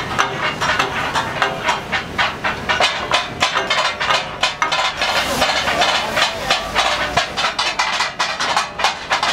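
Metal spatulas clanking fast and irregularly against several big flat metal griddles, the clatter that gives kat-a-kat (tak-a-tak) its name, over a steady hiss of sizzling and steam.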